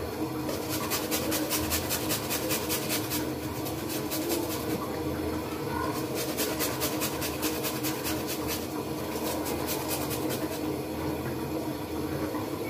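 Garlic cloves rubbed back and forth on a flat stainless-steel hand grater: quick rasping strokes, several a second, in a few runs broken by short pauses.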